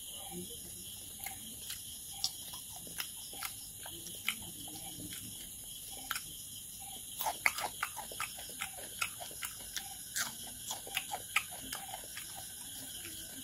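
Close-miked chewing and lip-smacking of a person eating rice and pork by hand: a run of irregular wet mouth clicks, busiest around the middle, over a steady hiss.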